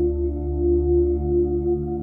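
Calm ambient background music: sustained, ringing tones over a low drone, slowly wavering and pulsing.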